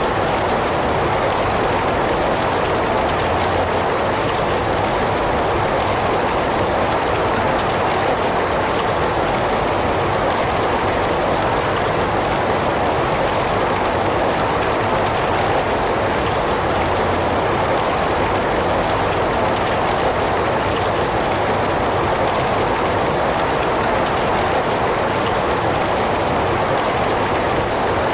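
Heavy rain falling in a steady, even hiss, fullest in the middle range, with no change or break.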